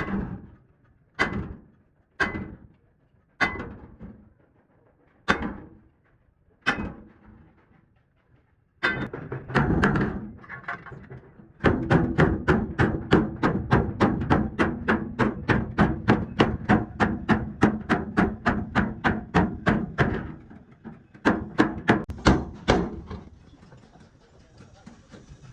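Hammer blows on a dented metal truck fuel tank as it is beaten back into shape. Six single ringing strikes a second or so apart come first, then a fast steady run of about four blows a second for some eight seconds, and a few last strikes near the end.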